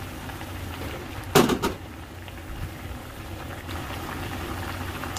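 Dashi broth with tofu and crab meat simmering gently in a pan, a steady bubbling over a low hum. About a second and a half in there is a sharp double knock, like a utensil or lid striking the pan.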